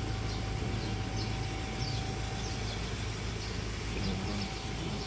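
Steady low rumble of an idling vehicle engine, with short high bird chirps repeating over it.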